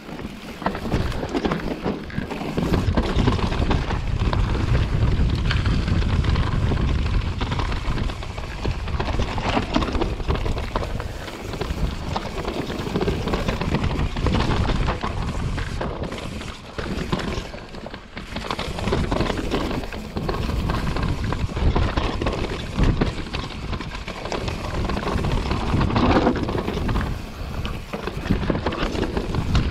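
Mountain bike ridden fast down rocky singletrack: tyres crunching and rattling over loose stones and rock, with knocks and clatter from the bike, under a steady rumble of wind buffeting the camera microphone.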